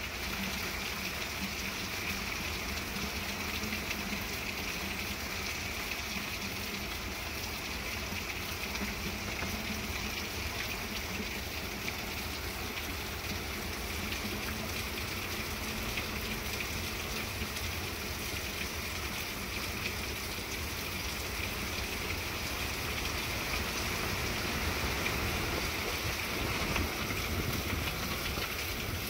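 Heavy, steady hurricane rain pouring onto garden plants and pavement, swelling a little near the end.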